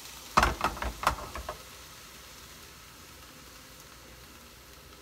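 A frying pan knocking and clattering several times against the stovetop as it is tossed and set down, over about a second. A faint hiss follows.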